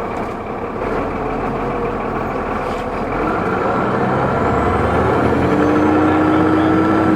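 2004 New Flyer D40LF transit bus's Cummins ISL diesel engine running steadily, then pulling harder from about three seconds in. A high turbo whine rises slowly in pitch as it does.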